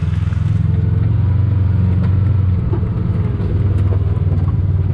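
Engine of a green off-road vehicle running steadily at low speed, a pulsing low rumble, as it goes down a rough trail.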